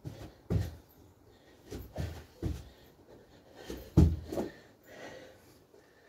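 Feet landing with repeated thuds on a floor as a person kicks the legs back and jumps them in during burpee kickouts, with heavy exhales from the effort. About six thumps, the loudest about four seconds in, then quieter breathing as he moves into a squat.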